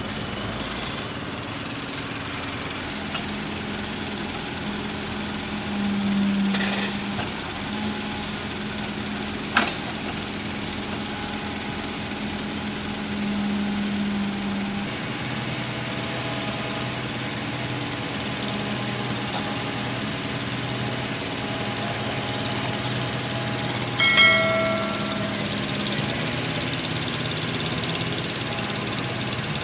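Heavy machinery engine running steadily, its hum dropping lower about halfway through. A sharp click about ten seconds in, and a short high tone near the end.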